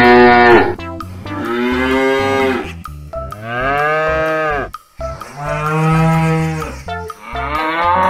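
Cows mooing: about five long, low calls one after another, each dropping in pitch at its end.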